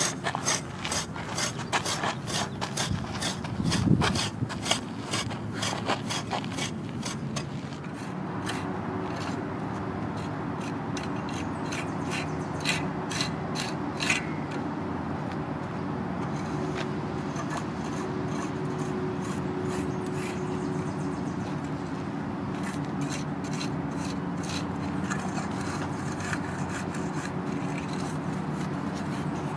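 Steel tines of an iron garden rake scraping and dragging through loose dirt and clay, in rapid repeated strokes for the first several seconds and in sparser strokes after that. A steady low hum runs underneath from about eight seconds in.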